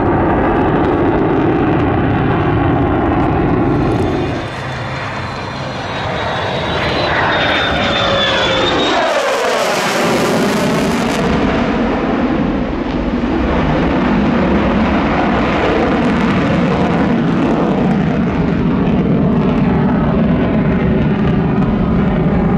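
Lockheed Martin F-35 Lightning II's single Pratt & Whitney F135 jet engine running in afterburner, a loud steady roar. About seven seconds in, a whine sweeps down in pitch as the jet passes, followed by a brief hiss, and then the roar carries on.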